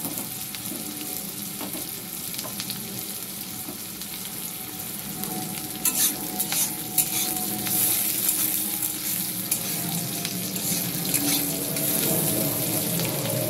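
Chopped garlic and onion sizzling steadily in hot mustard oil in a metal kadai. From about halfway through, a metal spatula stirs them, scraping and clicking against the pan, and the sizzle grows louder.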